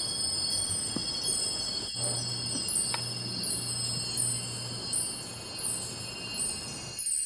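Wind chimes ringing, high metallic tones struck again and again, with a low steady hum underneath from about two seconds in. The sound cuts off suddenly near the end.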